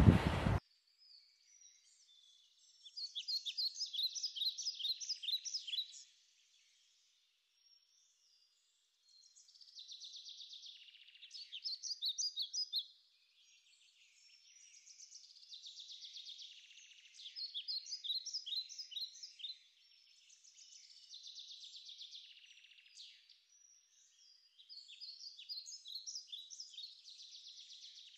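Songbirds singing: phrases of rapid high chirps and trills, each a couple of seconds long with short pauses between, some phrases louder than others.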